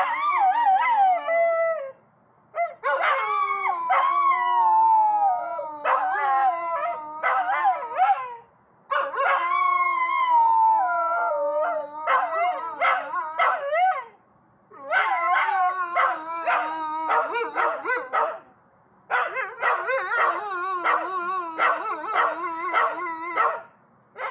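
Several dogs howling together in long, wavering howls that mostly slide down in pitch, in five bouts with short pauses between them. The howling is set off by a fire-truck siren.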